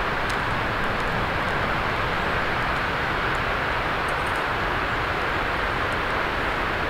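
Steady rushing outdoor background noise, with a few faint, sharp crackles from a small campfire.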